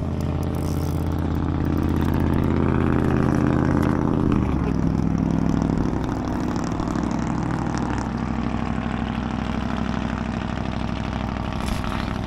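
An engine running with a steady low drone. It swells slightly and then drops in pitch about four and a half seconds in, and carries on evenly after that.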